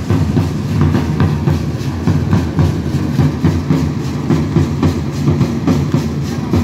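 Several large hand-held drums beating a fast, even rhythm for a matachines dance.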